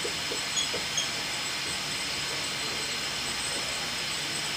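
A dry-erase marker writing on a whiteboard, with two short faint squeaks about half a second and a second in, over a steady hiss.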